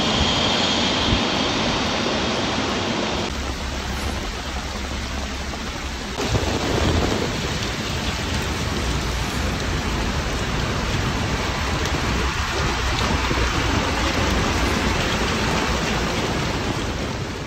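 Heavy rain pouring and floodwater rushing through a street: a steady, loud rushing noise that shifts abruptly about three and six seconds in.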